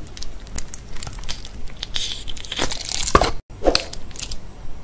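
Clear pink slime being squished and stretched by hands, giving irregular sticky crackles and pops, with a brief dropout about two-thirds of the way through.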